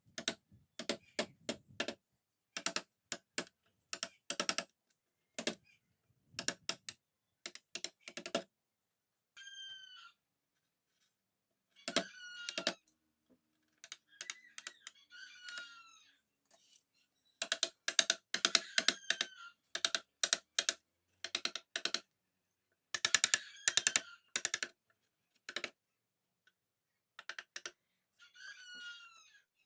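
Bursts of rapid, sharp knocks: a mallet tapping a wood-carving chisel into the wood. A bird calls at intervals with short falling chirps.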